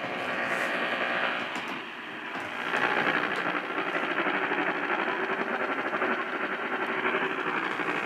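AM radio tuned to a distant station, 1180 AM KERN, heard through the radio's speaker: a steady wash of static and interference as the signal fades out while the Emergency Alert System test comes in, leaving the broadcast barely audible.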